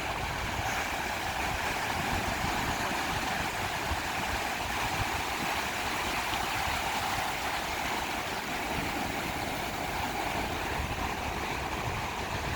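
Ocean surf breaking on a sandy beach, heard as a steady continuous wash with no clear single waves standing out.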